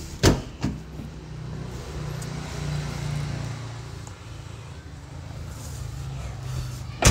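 Car engine running low and steady, swelling slightly a few seconds in, with two sharp knocks near the start and another at the end.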